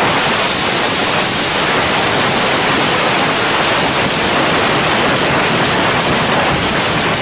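Loud, steady hiss of noise, even from low to high pitches, like white noise or static.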